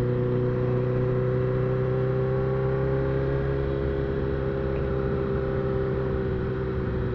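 A sport motorcycle's engine running steadily while being ridden at road speed, with wind and road noise; its pitch rises slightly about halfway through and then eases back.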